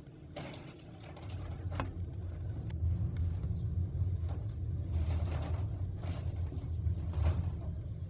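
A low rumble that swells about a second in and holds, with a few faint clicks.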